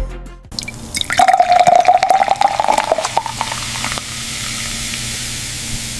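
Running water: splashing and dripping for the first few seconds, settling into a steady hiss like a spray.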